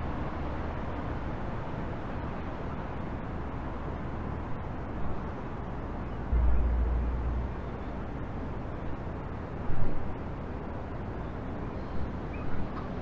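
Steady outdoor city background noise, like distant traffic. A few brief low rumbles break through, the loudest about six and a half and ten seconds in.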